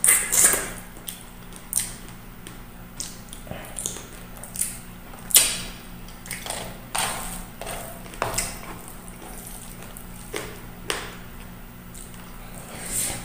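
Eating sounds: chewing and lip smacking while eating chicken feet adobo and rice by hand, in irregular short bursts over a faint steady low hum.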